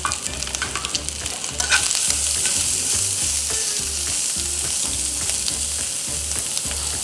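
Shrimp, shiitake mushrooms and garlic sizzling in an oiled frying pan, with short clicks of metal tongs against the pan as the pieces are turned over. The sizzle grows louder about two seconds in.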